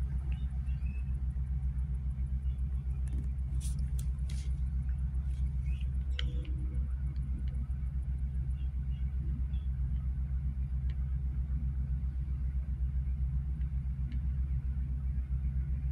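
Steady low rumble throughout, with a few light clicks about four and six seconds in.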